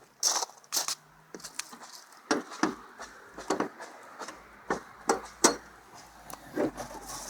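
A string of irregular sharp clicks and knocks, the loudest about five and a half seconds in, from the hood release being pulled and the hood being unlatched and raised.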